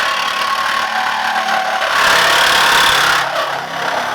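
Reciprocating saw (Sawzall) cutting through the BMW E30's front body sheet metal, a steady loud rasp that swells for about a second midway.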